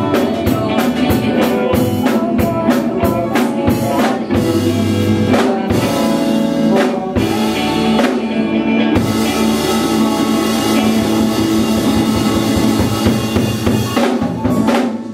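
Live rock band playing: electric guitars and bass guitar over a drum kit keeping a steady beat. Near the end the playing breaks into a few separate loud hits.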